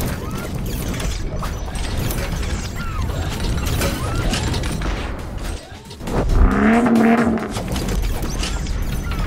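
Sound-designed intro effects: dense mechanical clicking and ratcheting, as of metal parts locking together, over a deep low rumble, with a louder pitched sweep about six seconds in.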